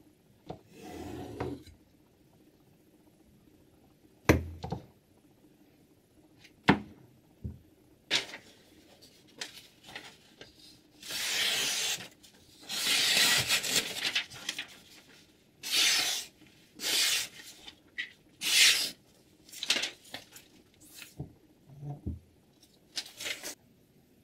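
A few sharp clicks of handling, then a string of rasping strokes about one a second, some short and some over a second long: a whetstone on the Hapstone T1 guided sharpener being drawn along a knife's edge.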